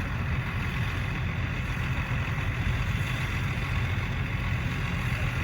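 Farm tractor engine running steadily, a low even drone with no change in speed.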